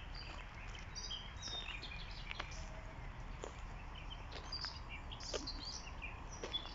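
A chorus of many birds singing at once: scattered short chirps and whistles, fairly faint, over a steady low background rumble.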